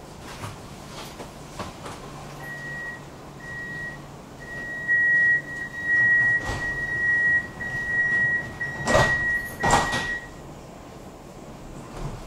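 A tram's door-closing warning beeping, a high tone in short beeps that becomes almost continuous, while the doors slide shut with two knocks near the end of the beeping.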